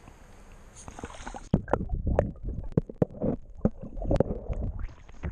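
Steady river-surface water noise, then about a second and a half in the action camera goes underwater: muffled sloshing and gurgling with irregular knocks of water against the camera housing.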